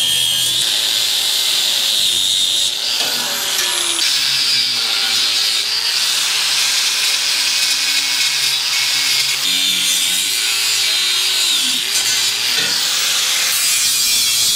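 Angle grinder with an abrasive cut-off wheel cutting through steel, grinding steadily throughout. The motor's whine sags and recovers several times as the wheel bites into the metal.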